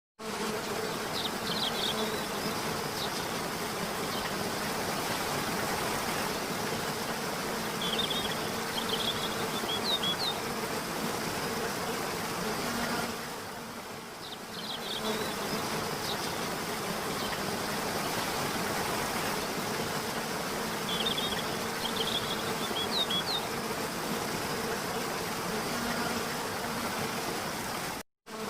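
Waterfall rushing steadily, with a low buzzing hum and clusters of short high chirps every few seconds. The sound cuts out briefly near the end.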